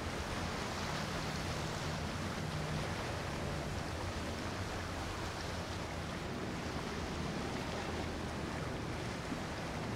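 Steady low hum of a large Oceanfast motor yacht's engines as it cruises past, mixed with a constant wash of wind and water noise.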